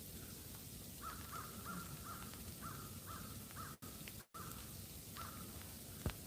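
A bird calling outdoors in a quick series of short, repeated notes, about two or three a second, with two more calls a little later. A short knock comes near the end.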